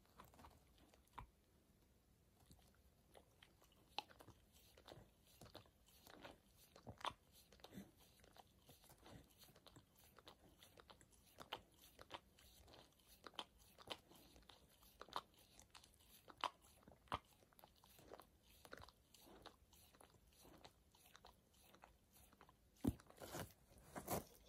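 Border collie chewing something crunchy: faint, irregular crunches about one or two a second, with two louder bites near the end.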